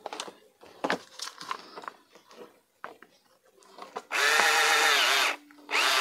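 Small drill running in two bursts, a steady whir of a little over a second and then a brief second run, after a few light clicks of plastic parts being handled.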